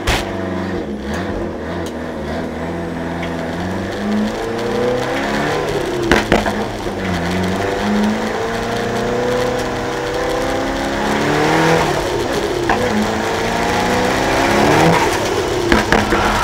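Competition car engine heard from inside the cabin at speed, its pitch repeatedly climbing and dropping back as the driver accelerates and lifts through the bends. A few sharp knocks cut through, around six seconds in and near the end.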